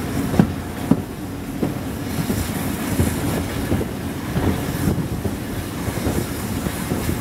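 Passenger coaches of a moving train running along the track: a steady rumble with irregular clicks of the wheels over rail joints, a couple of them sharp about half a second and a second in.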